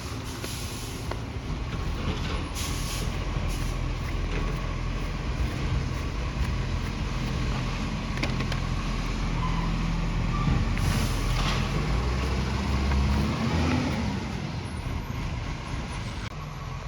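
Garbage truck's diesel engine running steadily, a truck with a big exhaust leak. It gets louder around ten to thirteen seconds in, then eases off, with brief hisses of air twice along the way.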